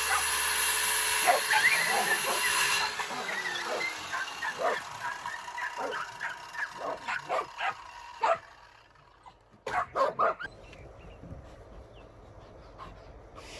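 A power saw cutting a board runs and cuts off about three seconds in. A dog yips and barks in quick short calls for several seconds, then gives a few more barks a little later.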